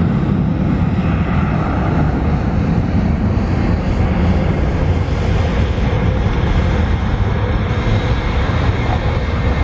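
Boeing 737 airliner's jet engines running as it rolls along the runway: a steady, loud rumble.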